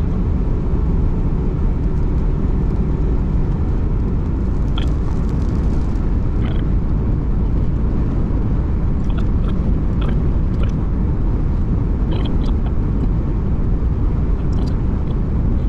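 Steady road and engine rumble of a car being driven at speed, heard inside the cabin, with a few faint, irregular short ticks.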